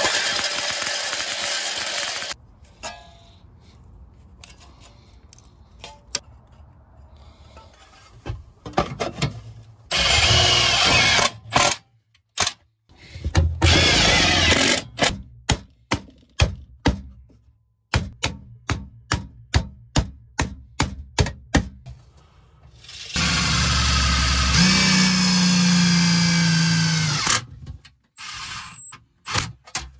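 Cordless drill/driver working on aluminium diamond-plate sheet: several short runs of the tool and a longer run near the end, with a string of quick, sharp knocks in between.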